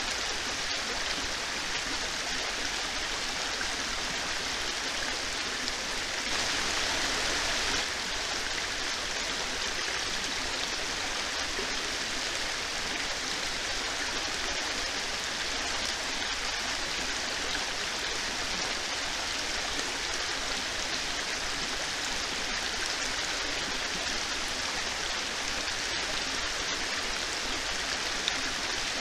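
Heavy rain falling steadily: a dense, even hiss, briefly louder for a second or so about six seconds in.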